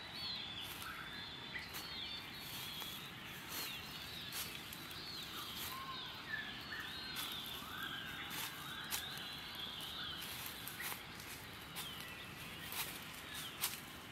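Several birds chirping and calling over and over, short rising and falling notes, over a steady woodland hiss. Scattered sharp clicks come through now and then.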